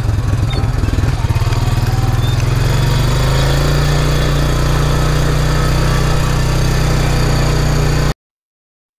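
Quad (ATV) engine running while being ridden. It is uneven and pulsing at first, then settles into a steadier, slightly higher-pitched drone from about three seconds in, and cuts off suddenly about a second before the end.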